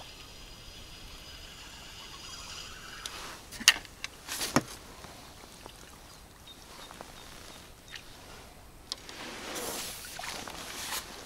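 Water splashing close by, with two sharp knocks about four seconds in and a longer splash near the end.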